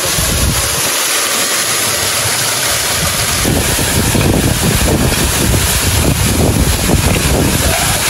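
Loud, steady rush of a waterfall close by, with low rumbling buffeting coming in about three seconds in.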